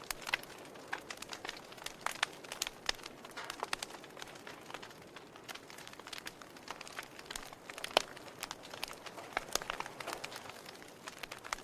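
Wood fire crackling in a fireplace: irregular sharp pops and snaps over a soft hiss of burning, with the sharpest pop about eight seconds in.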